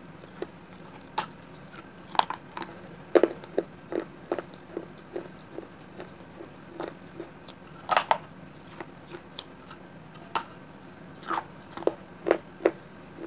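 A person biting into and chewing pieces of a clay gulak (clay piggy-bank shell), in sharp irregular crunches. The loudest bites come about two and three seconds in, near eight seconds, and several more near the end.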